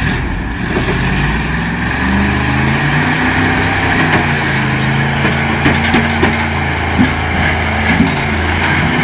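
Vehicle engine running steadily, its pitch shifting a few times, with several sharp knocks in the second half.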